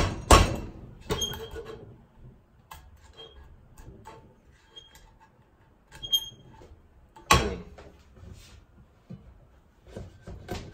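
Plastic spatula knocking and scraping at hardened caramelised sugar stuck fast to a non-stick frying pan: a sharp knock at the start and a few hard scraping strokes, then quieter scrapes and taps, with another hard scrape about seven seconds in. The caramel has set and is hard to get the spatula under.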